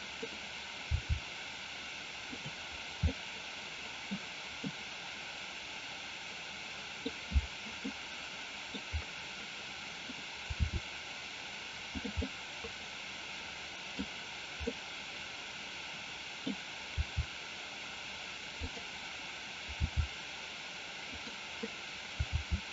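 Steady microphone hiss with scattered soft, low thumps at irregular intervals, from handling the mouse and keyboard at the desk.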